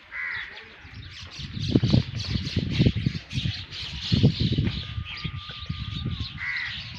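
Birds chirping and chattering continuously, with a short harsh call near the start and another near the end, and a thin steady whistle-like note for over a second in the latter half. Two spells of loud low rumbling thumps come through, one about two seconds in and one about four seconds in.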